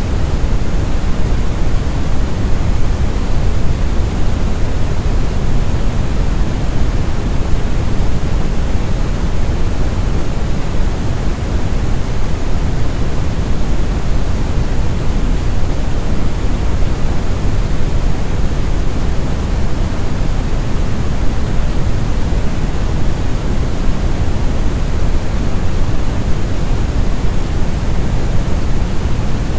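Steady synthetic brown noise: a deep, rumbling hiss weighted toward the bass, unchanging throughout.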